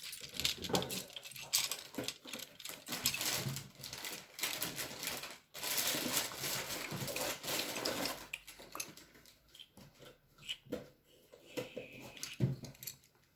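Loose plastic Lego pieces clicking and clattering as a hand sifts through them. The rattling is busy for the first eight seconds or so, then thins to scattered clicks.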